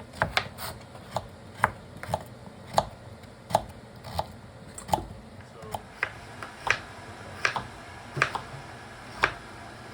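Kitchen knife chopping vegetables on a cutting board: a run of sharp knocks, roughly one every half second to a second, irregular in spacing.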